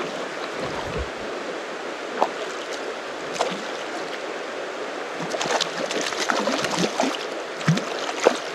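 Steady rush of flowing river water, with a run of short splashes in the water through the second half.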